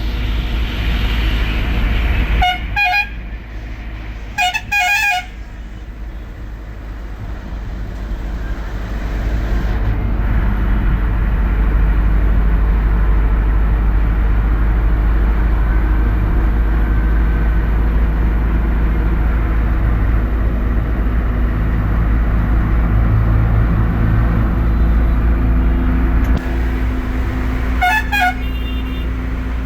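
Bus horn sounding in short toots, twice a few seconds in and once more near the end, over the steady low drone of the bus engine and road noise, which grows louder about ten seconds in.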